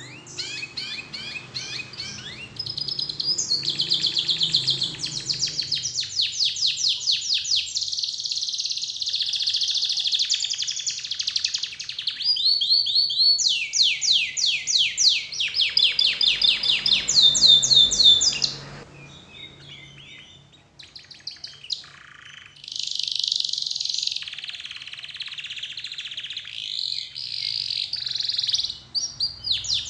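Domestic canary singing long phrases of fast trills and rolling, rapidly repeated notes, with a short lull about two-thirds of the way through.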